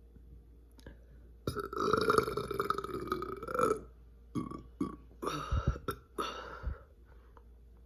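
A person burping from a stomach full of chugged Coca-Cola: one long, loud belch of about two seconds, then several shorter burps.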